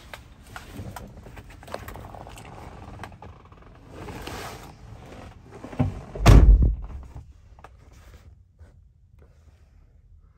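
A heavy, low thump about six seconds in, the loudest sound here, amid rustling and small clicks.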